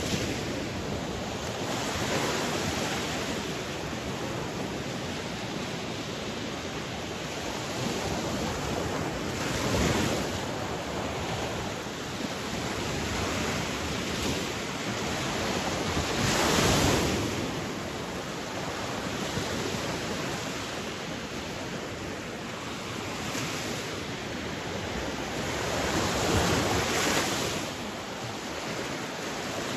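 Sea waves washing ashore over a steady rush of surf, with a louder wave breaking about every seven to ten seconds; the biggest is about two-thirds of the way through.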